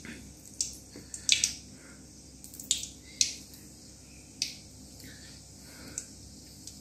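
A piece of cinnamon frying in hot oil in an aluminium kadai, the oil crackling with sharp scattered pops that come a few at a time early on and thin out towards the end.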